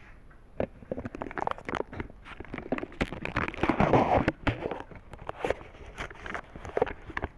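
Irregular clicking and rattling of plastic toy train wagons on their track, close to the onboard camera. The clicks come thick and loudest about halfway through, then thin out again.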